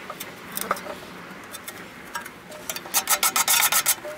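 A few light clicks on thin sheet metal, then, about three seconds in, a quick run of scraping strokes lasting about a second, from the finished fuel-can fire pit being handled and rubbed.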